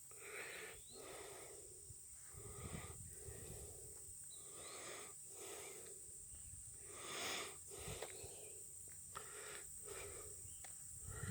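Steady high-pitched insect buzz from the field, with soft rhythmic swishing a little more than once a second.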